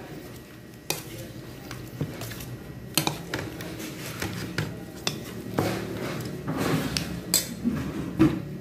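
A stainless steel bowl and metal spoon clinking and knocking irregularly as raw shrimp are tossed by hand in cornstarch, with soft handling noise between the clinks.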